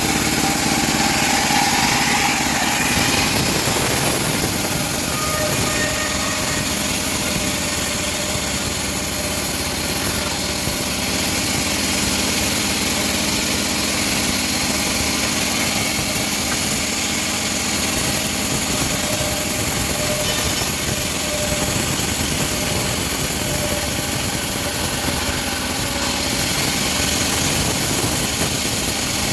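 Homemade bandsaw sawmill running steadily, sawing teak wood.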